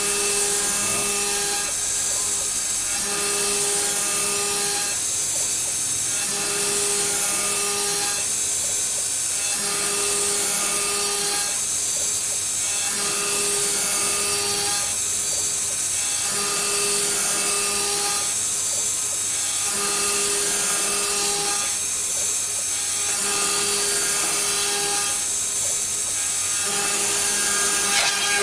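Homemade mini CNC router milling a circle: the spindle and cutter make a steady high-pitched noise, while a set of humming tones comes and goes about every three seconds.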